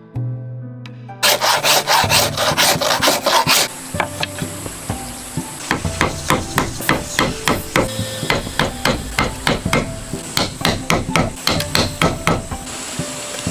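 Wooden mallet striking a steel chisel, chopping a mortise into a wooden beam, with the chisel cutting and scraping in the wood. A fast flurry of blows about a second in, a short lull, then a steady run of strikes at several a second that stops near the end.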